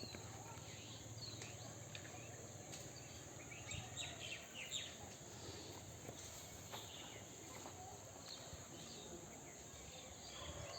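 Faint bird chirps and calls scattered throughout, over a steady outdoor background hum, with a few soft knocks.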